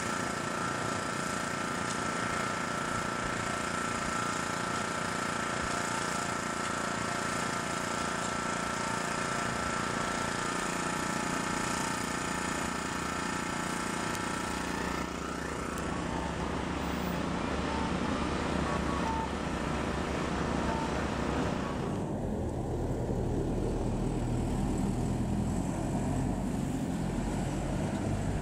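Keihan 800 series electric train running on street track, its motors giving a steady whine of several tones that fades as it moves off about fifteen seconds in. From about 22 seconds, a low rumble of road traffic.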